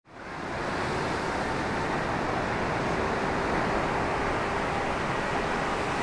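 Strong wind and lake surf making a steady rushing noise, fading in over the first half second and then holding level.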